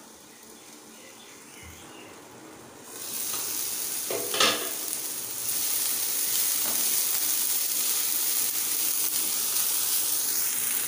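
Diced potatoes, tomatoes and green chillies frying in a non-stick pan. A faint, muffled sizzle under the glass lid turns into a much louder steady sizzle about three seconds in, as the lid comes off. A single clink follows about a second later, and then a spatula stirs the pieces through the sizzle.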